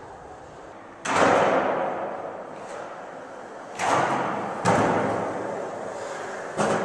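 Skateboard on a bare concrete floor: four sharp clacks of the board hitting the floor, about a second in, near four seconds, just under five seconds and near the end. Each is followed by the rumble of the wheels rolling and fading, echoing in a large hall.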